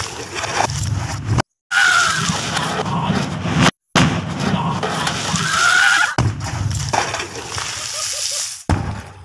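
Sutli bomb (jute-twine firecracker) blasts in water-filled drums throwing up water: a loud, dense rush of spray and splashing. It is broken twice by sudden short silences.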